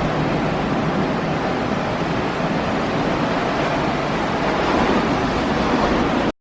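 Steady rush of ocean surf mixed with wind buffeting the microphone; it cuts off suddenly near the end.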